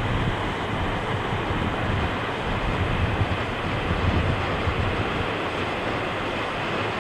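Wind buffeting the microphone in irregular low gusts, over a steady wash of sea surf.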